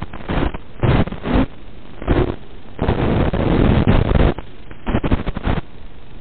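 Hiss from an analog FPV video receiver's audio channel, broken by irregular loud bursts of static as the radio link breaks up. The longest burst lasts about a second and a half, in the middle.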